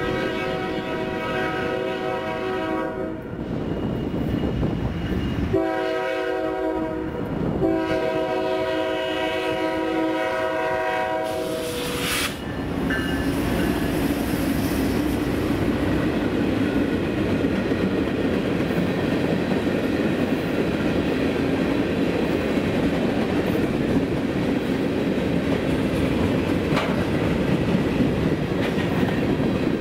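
Freight locomotive's multi-note air horn sounds three blasts for a grade crossing, the last one the longest. Then, about twelve seconds in, the GE diesel locomotives pass close by and a long string of tank and hopper cars follows with a steady rumble and wheel clatter.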